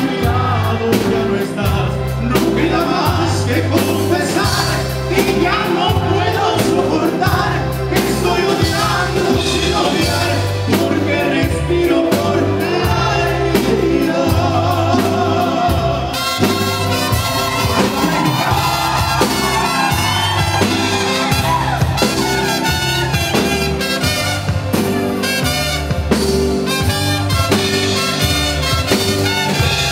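A live band plays loudly: trumpets, drums, keyboards and a pulsing bass line, with a singer.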